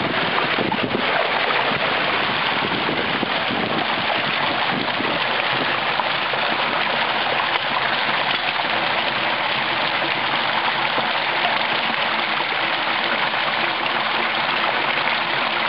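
Rainwater runoff rushing in a steady splashing sheet over stone slabs and cascading down a small ledge.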